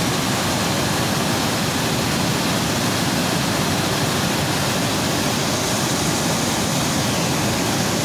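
Waterfall on a river in fast flood: a loud, steady rush of falling water.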